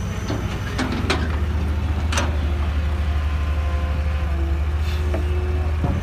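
Heavy diesel engines of a Cat 320 excavator and a dump truck stuck in soft soil, running with a steady low drone. A few short sharp knocks come about one and two seconds in.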